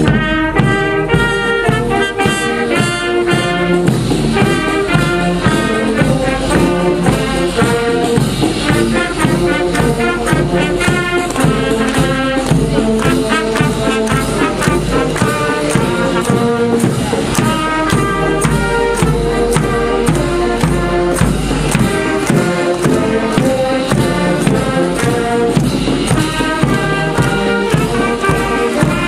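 Marching brass band with flutes playing a march tune: brass, saxophones and flutes over a steady beat, starting abruptly at the opening.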